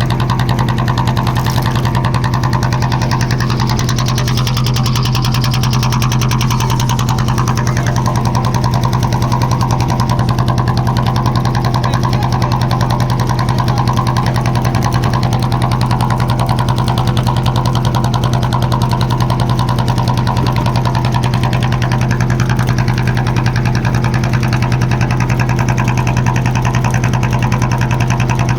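Small fishing boat's engine running steadily at constant speed: a loud, even low drone with a fast regular firing rhythm that does not change.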